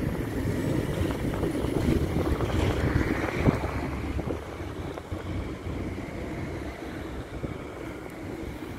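Tram rolling past, a steady rumble that fades toward the end, with a sharp click about three and a half seconds in and wind buffeting the microphone.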